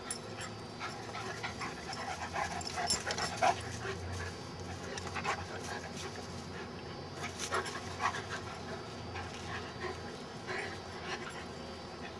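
Two dogs play-wrestling, panting heavily, with bursts of short sharp noises, busiest about two to four seconds in and again around eight seconds in.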